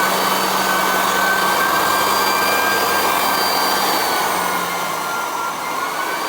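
Electric floor-refinishing machine running steadily: a loud motor noise with a high whine, the whine's pitch sagging slightly a few seconds in.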